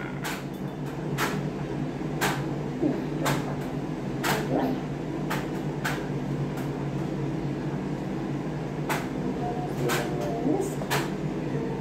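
Light clicks and taps of small objects being handled, scattered irregularly about once a second, over a steady low hum.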